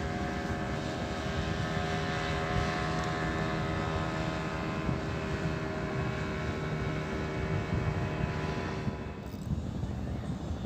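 An engine running steadily at an even pitch, fading away about nine seconds in.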